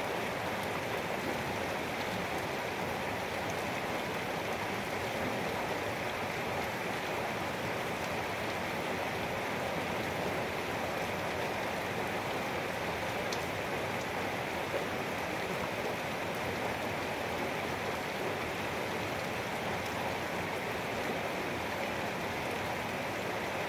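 Rain falling steadily, an even hiss that keeps up without a break.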